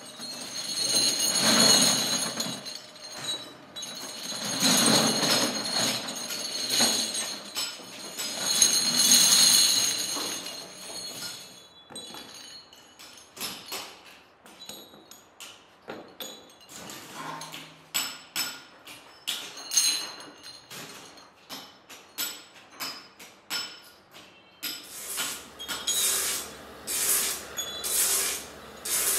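Metal motorcycle brake shoes clattering and clinking against one another: three swelling rattles in the first ten seconds, then a string of separate sharp clinks as they are handled. Near the end a low steady hum comes in under quicker, regular clicks.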